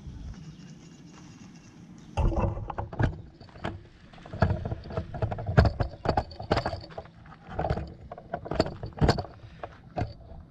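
Camera handling noise: irregular knocks, taps and rubbing close to the microphone as the camera is picked up and moved, starting about two seconds in.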